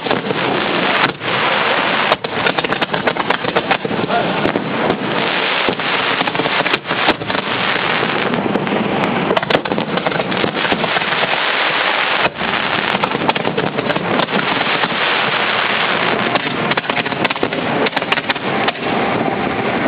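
Fireworks going off from the launch barge at close range: a dense, unbroken barrage of bursts and crackle, with many sharp reports.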